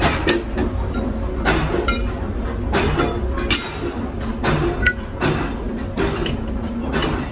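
Irregular metallic clinks and knocks, several a second, over a steady low machine hum.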